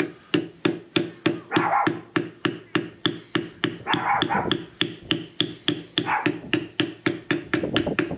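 Rapid, evenly spaced metal taps, about three to four a second, on the cast-iron hydraulic lift cover of a Ford 600-series tractor as a part over the unloading valve is tapped back into its bore to seat it. A dog barks about every two seconds behind the tapping.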